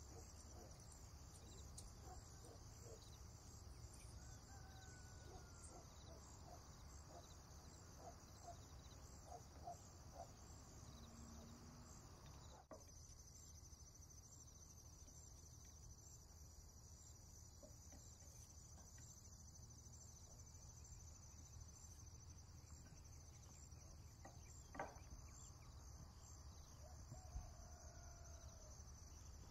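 Near silence: faint room tone with a steady, faint high-pitched chirring and a few soft ticks.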